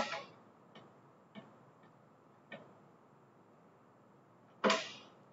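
Metal-on-metal clanks and light clicks as clamps are fitted and locked onto a metal sheet on a milling machine's bridge plate. There is a sharp clank at the start, a few small clicks over the next couple of seconds, and a louder clank near the end.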